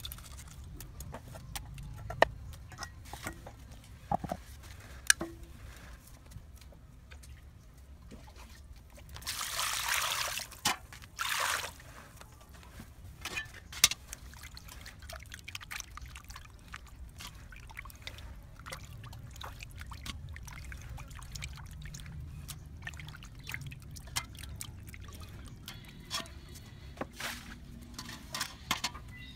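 Water trickling and pouring, with scattered sharp clicks and knocks; a louder pour comes in two bursts about ten seconds in.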